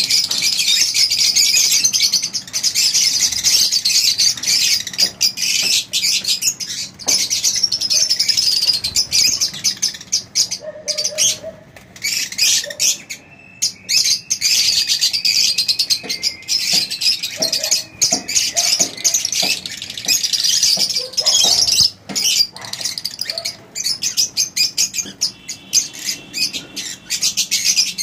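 A flock of Fischer's lovebirds chattering: a dense, continuous stream of shrill, high chirps and calls that thins out briefly about halfway through.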